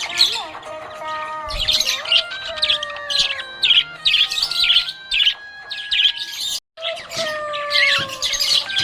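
Budgerigar chirping in quick, repeated high twitters over background music of held and gliding notes; all sound drops out for a moment about two-thirds of the way through.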